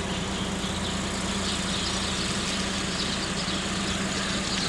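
A steady low machine hum, like an engine or motor running without change, under a constant outdoor wash of noise with faint high chirps.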